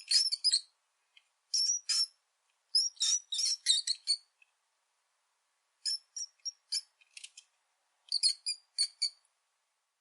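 Rat squeaking: short, high-pitched squeaks coming in quick clusters of three to six, with brief silent pauses between the clusters.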